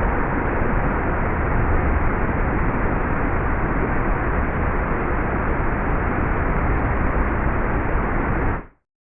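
Steady hiss with a low rumble underneath: the background noise of an outdoor field recording, with no call in it. It cuts off suddenly near the end.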